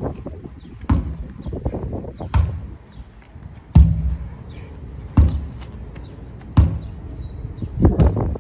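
Sledgehammer striking a tire in steady swings: six heavy thuds, about one every second and a half.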